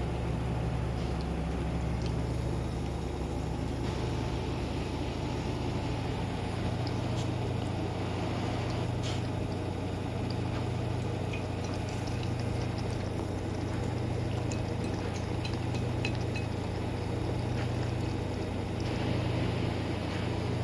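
A dog eating soup: scattered small clicks and wet lapping sounds over a steady low hum.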